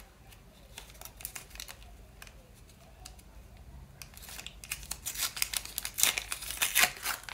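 Small folded paper surprise packet being opened by hand: irregular rustling, crinkling and tearing of paper, sparse at first and then louder and busier over the last few seconds.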